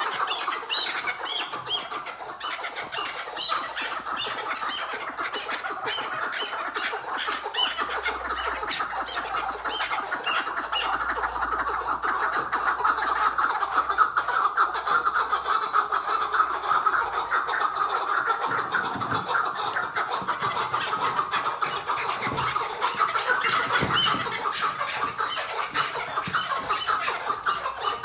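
Caged chukar partridge giving its "hıngırma", a continuous rapid churring chatter with no pauses. In the first few seconds sharper, higher notes sound over it.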